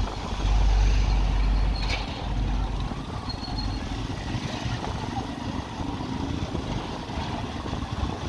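Motorcycle engine running and wind rumbling on the microphone while riding, loudest from about half a second to two seconds in. A short high beep sounds about three seconds in.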